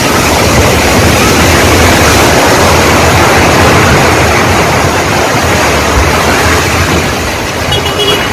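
A multi-storey concrete apartment building collapsing in an earthquake: a loud, continuous rushing roar of falling rubble that eases slightly near the end.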